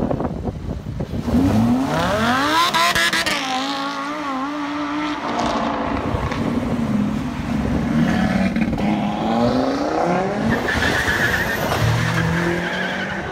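Audi RS3 Sportback 8V's turbocharged five-cylinder engine accelerating hard as the car pulls away. Its pitch climbs over the first few seconds, holds, then climbs again around nine seconds.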